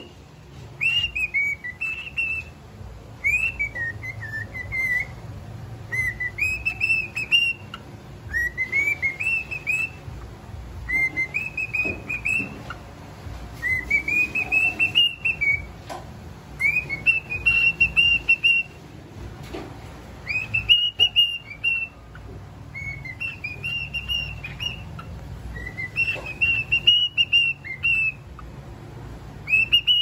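Cockatiel singing a whistled song: a long string of short clear whistle phrases that glide up and down in pitch, many ending on a held higher note, with brief pauses between them.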